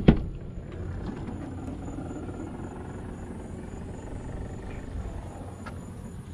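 A single sharp clunk right at the start, as the Dodge Durango's liftgate latch releases and the liftgate is opened, followed by a steady low background hum.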